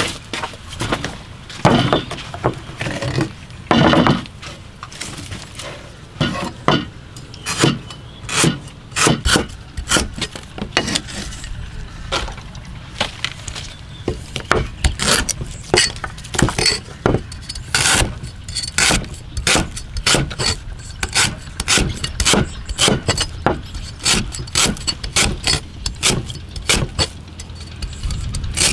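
Cleaver chopping lemongrass stalks on a round wooden chopping board: an uneven run of sharp knocks, several a second.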